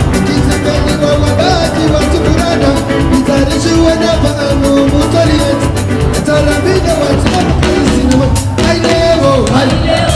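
Live band music with a fast, steady beat and sustained melodic instrument lines.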